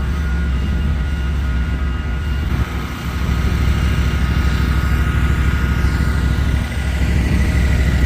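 A motor vehicle engine running steadily, with a deep rumble and a faint steady whine above it, dipping briefly about three seconds in.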